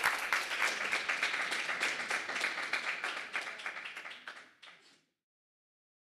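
Audience applauding, the clapping fading steadily and ending about five seconds in.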